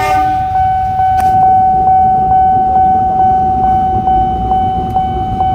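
Railway level-crossing warning alarm sounding one steady, high electronic tone with faint ticks about twice a second. A low rumble of a passing diesel locomotive and idling motorcycles runs underneath.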